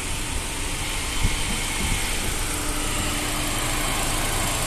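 Ford New Fiesta's engine idling steadily under the open bonnet, a constant hum with an even hiss over it.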